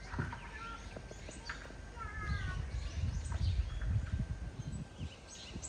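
Small birds chirping, with short repeated calls and a quick run of gliding notes about two seconds in, over a low rumble that swells in the middle.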